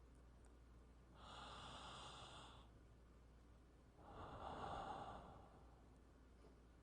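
A person breathing, faint and slow: two breaths, each lasting about a second and a half, one about a second in and the next about four seconds in.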